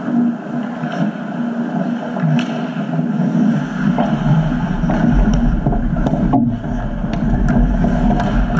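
Ice hockey play on a rink: skate blades scraping the ice and scattered sharp clicks of sticks and puck over a steady noise, with a low rumble from about halfway on.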